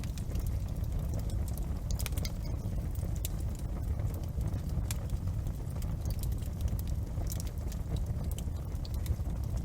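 Wood fire in a fireplace crackling: irregular sharp snaps and pops, several a second, over a steady low rumble.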